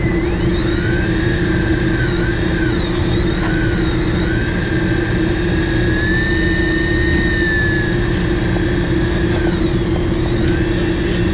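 Electric fishing reel's motor whining, its pitch rising and falling as the speed changes, over a steady engine drone from the boat.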